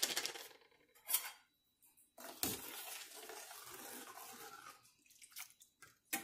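Steel ladle stirring seasoned water in a stainless steel frying pan: a few knocks and scrapes of metal on the pan, then about three seconds of water swishing, with small clicks near the end.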